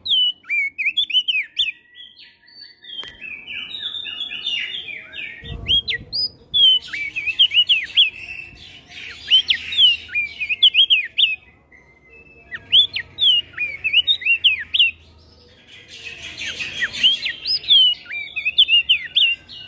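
Crested white-eye (opior jambul) singing in rapid bursts of sweeping whistled notes, answered by other songbirds, with short breaks between bursts.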